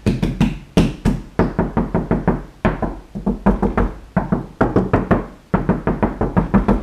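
Knuckles rapping on the 2009 Volvo S40's roof panel, now lined with Dynamat Extreme sound deadener, about four knocks a second with short pauses between runs. This is the after-deadening knock test of the panel, which is now way more rigid.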